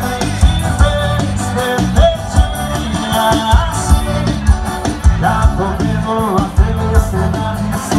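A live forró band playing through a PA system: singing over melodic lines, with bass and a steady kick-drum beat.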